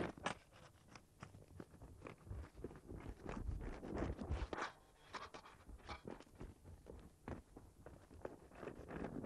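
Irregular clacks and scuffs of inline skates rolling, landing and grinding on paving stones and a low metal rail, with a sharp clack just after the start.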